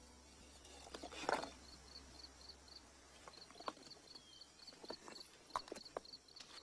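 Field crickets chirping steadily, about three chirps a second, while stones are shifted on a dry-stone wall: a loud scrape about a second in, then a few light knocks of rock on rock.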